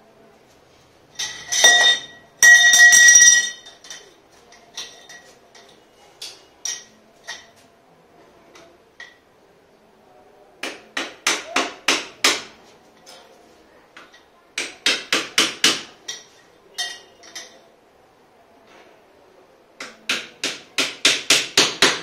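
Thin carbon-steel tubes of a collapsible wardrobe frame clanking against each other. About two seconds in come two loud ringing clinks, followed by scattered light clicks. Later there are three separate runs of quick knocks, about four or five a second.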